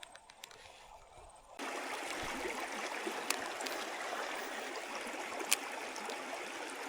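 Steady rushing of a shallow creek's running water, starting abruptly about a second and a half in after a quieter stretch with faint clicks. Two sharp clicks stand out over the water later on.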